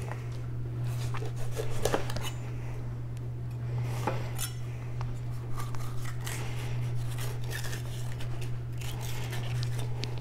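Kitchen knife, a 240 mm kiritsuke gyuto, chopping quickly on a cutting board: many fast, irregular blade strikes and scrapes, over a steady low hum.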